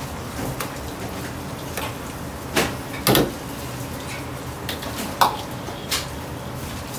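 Metal ladle and wire-mesh strainer clanking against a large steel wok, four sharp clanks with the loudest about three seconds in, over the steady rushing of a gas wok burner and a running tap.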